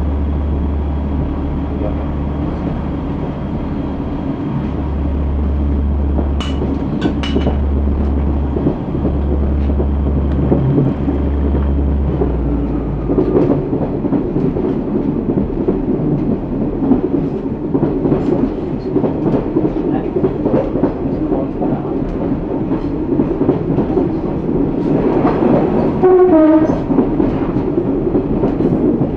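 Class 142 Pacer diesel railbus running along the line: a low engine drone that shifts in steps during the first half, then rhythmic wheel clatter over the rail joints. About 26 seconds in comes a short run of tones falling in pitch.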